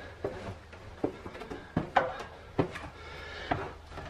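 Footsteps going down a flight of stairs: about six single steps, roughly one every three-quarters of a second.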